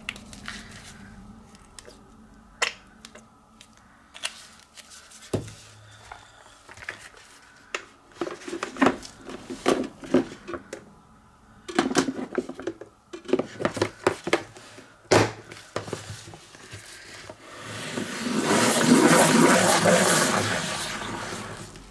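Plastic salad spinner handled with scattered clicks and knocks as its lid goes on, then spun near the end: a whirring, rattling run of a few seconds that swells and dies away as the basket spins a paint-dotted paper disc.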